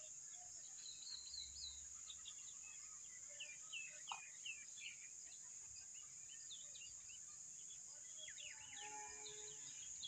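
Faint open-field ambience: small birds chirping in many quick, high notes, over a steady high-pitched hiss. A brief low held tone comes in near the end.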